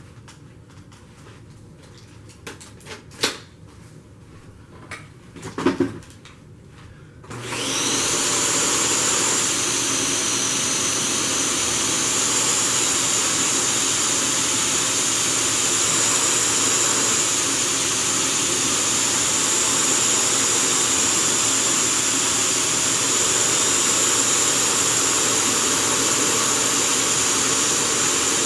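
A couple of knocks, then the Dyson Cinetic Big Ball canister vacuum switches on about seven seconds in. It runs steadily with a high whine that rises as the motor spins up, while its plain suction nozzle, which has no brushes, is pushed over carpet.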